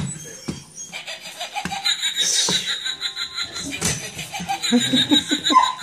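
A person laughing in short, soft chuckles, coming in bursts toward the end.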